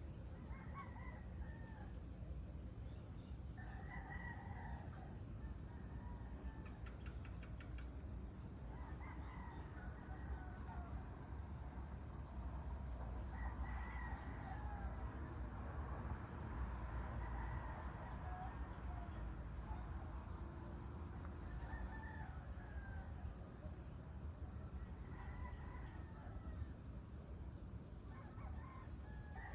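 Several roosters crowing every few seconds, the calls overlapping and answering one another, over a steady high-pitched hum and a low background rumble.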